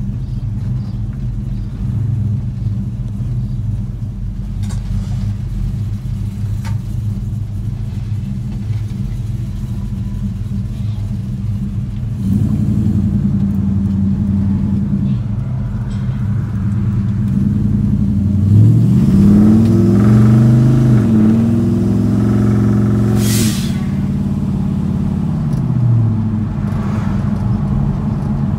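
Small-block Chevy V8 in a 1977 Chevy C10, exhausting through Flowmaster Hushpower HP-2 mufflers, heard from inside the cab. It runs steadily at low speed, then picks up and revs up with a rising pitch about two-thirds of the way in. It holds there with a brief hiss, then eases off near the end.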